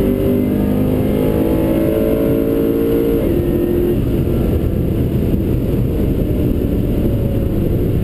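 Supercharged Holden Commodore SS-V V8 at full throttle, heard from inside the cabin. Its note climbs, then drops as the six-speed automatic upshifts about three seconds in. About a second later the engine note fades into steady wind and road noise as the throttle comes off at the end of the quarter-mile pass.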